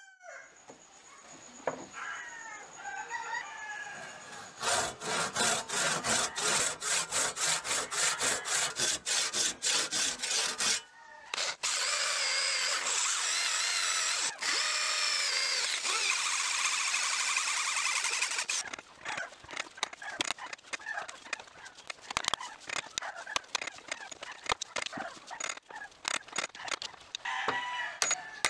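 An electric drill runs steadily for about seven seconds, boring out the old wooden handle left in the eye of a ball peen hammer head clamped in a vise. Before it come regular strokes at about three a second, and after it irregular taps and scraping as a punch works the remaining wood out of the eye.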